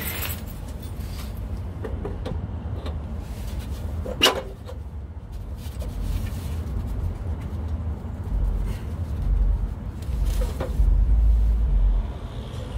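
Low rumble that grows louder in the last few seconds, with one sharp metal clank about four seconds in and a lighter knock near the end, from exhaust and heat-exchanger parts being handled on a VW Type 3 engine.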